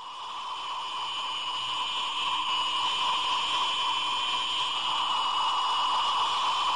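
A steady electronic hum: two held high tones over a hiss, swelling slightly over the first couple of seconds and then holding level.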